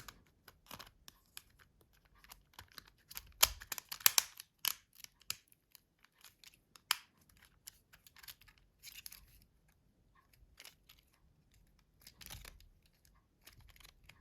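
Small clicks, scrapes and rustles of Nokia C2-06 phone parts being handled and pressed together during reassembly, with a cluster of sharper clicks about three and a half to four seconds in.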